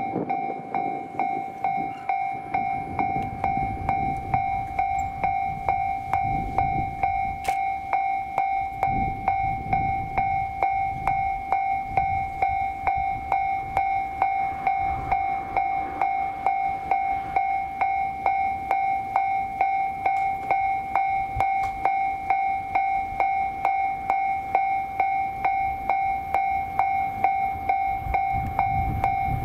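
Railway level crossing alarm ringing, an even two-tone chime pulsing about twice a second, with a low rumble underneath, the warning that a train is approaching.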